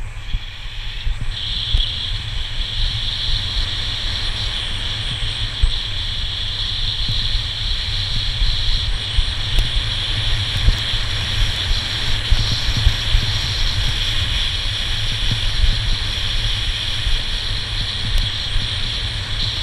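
Wind buffeting the microphone of a skier's worn camera during a fast descent, a steady low rumble, with the hiss of skis sliding over groomed snow starting about a second in.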